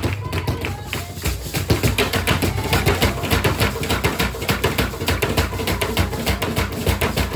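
Fast, steady drumming in a driving rhythm of rapid strokes, with deep drum beats coming in about a second in.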